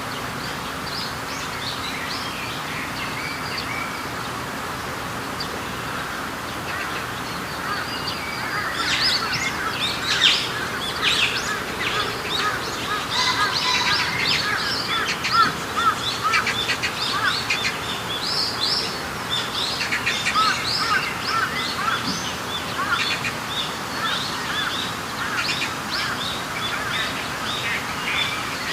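Many small birds chirping over a steady background hiss: scattered calls at first, then a dense chorus of overlapping chirps from about eight seconds in.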